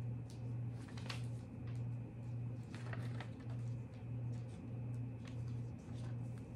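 Paper rustling and crinkling in short, scattered crackles as sheets are folded by hand, over a louder low hum that swells and fades about three times every two seconds.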